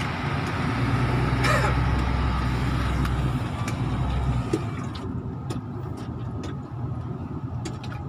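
MAN TGS truck's six-cylinder diesel heard from inside the cab, running with a steady low drone as the truck rolls slowly. About four and a half seconds in the engine note drops away to a quieter run, and a string of light, irregular clicks follows.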